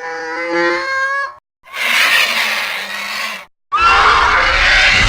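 Pteranodon creature sound effects: three calls separated by short gaps. The first is a pitched, wavering call; the second is harsher and noisier; the third is harsh again with a low rumble underneath.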